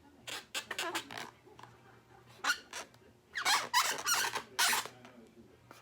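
Inflated latex balloons squeaking as they are rubbed, in several short bursts, the loudest from about three to five seconds in.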